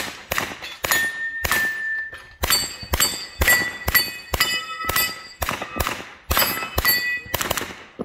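A string of about twenty gunshots, two to three a second, fired at steel targets. Many shots are followed by the ding and clang of steel plates ringing as they are hit.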